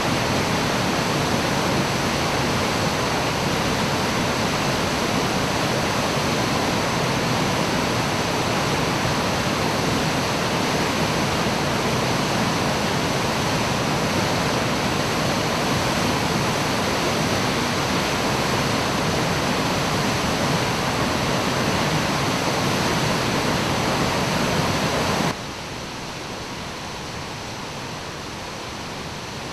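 A 30 m straight-drop waterfall: a steady, dense rushing of falling water. About 25 seconds in, the sound suddenly becomes quieter and thinner, losing much of its low rumble.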